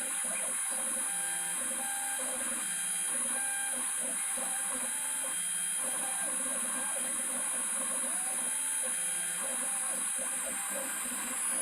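CNC router's stepper motors whining in shifting pitches as the axes move and change speed, some steps gliding up or down, over a steady high-pitched whine.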